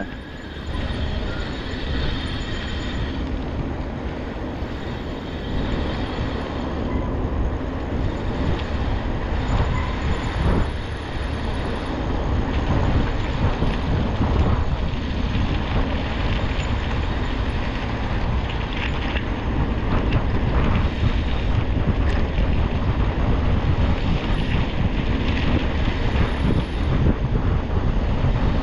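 Wind buffeting the microphone over a continuous rattling rumble, like wheels running over a rough, rocky track.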